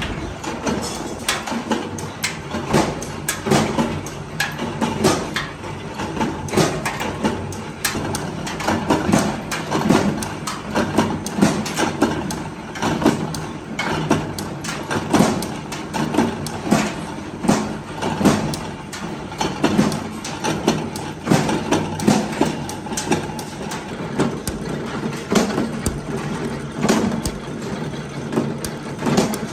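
Small mechanical power press running with a steady motor hum, its ram stamping metal washer blanks about once a second, each stroke a sharp knock.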